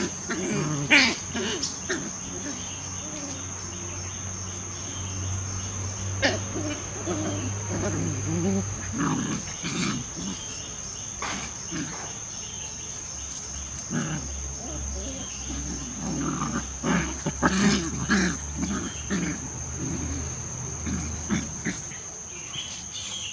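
German Shepherd puppies growling in rough, irregular bursts as they play-fight.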